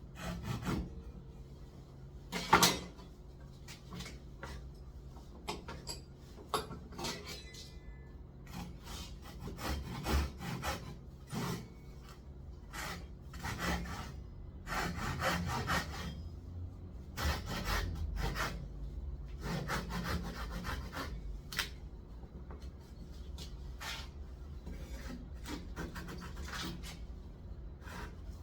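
Hand woodworking: irregular scraping strokes of a tool on wood, with one sharp knock about two and a half seconds in.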